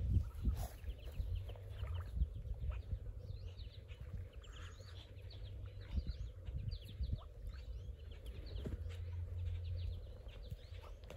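A brood of Muscovy ducklings peeping: many short, high, falling peeps overlapping one another, over a low rumble.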